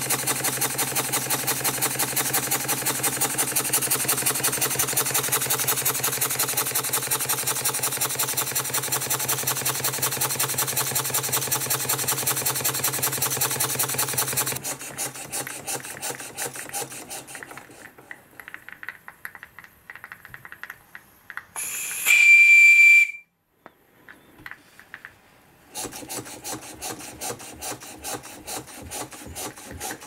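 Model live steam engine running fast on steam, with rapid, even exhaust chuffs over a steady hiss. About halfway through the beat slows and grows fainter as the valve is eased. A loud, high steam whistle sounds briefly a little after twenty seconds, and after a short gap the engine is heard chuffing again.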